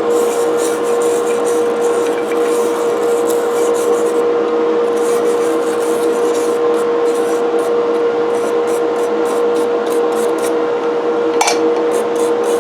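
Wire brush scrubbing the bare cast iron parts of an old coffee grinder, a harsh irregular rasping, over a steady motor hum.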